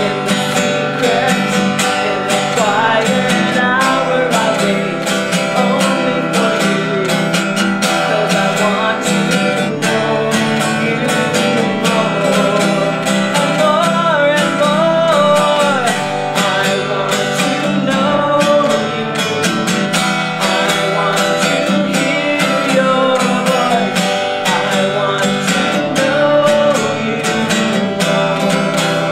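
Acoustic guitar strummed steadily under a sung melody: a Christian worship song performed live.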